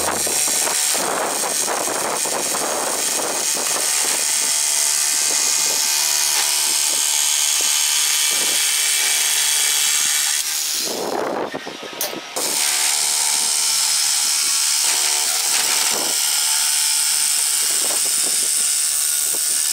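Electric jigsaw cutting through 5 mm steel plate, a steady high rasping cut. It stops briefly about halfway through, then carries on cutting.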